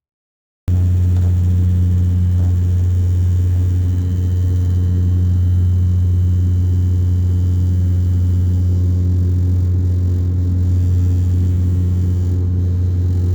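Light airplane's piston engine and propeller running steadily at cruise: a loud, even hum with a low beat that cuts in abruptly under a second in.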